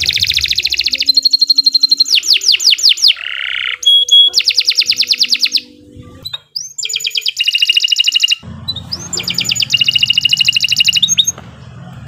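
Domestic canary singing a long song of fast trills and rapid rolls of repeated notes, with quick falling sweeps. There is a short break about six seconds in, and the song stops just before the end.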